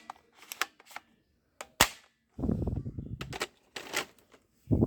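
Sharp snapping shots from a toy gun, a few single cracks spread apart, with a stretch of low rumbling noise from about two to three and a half seconds in and a short low thud near the end.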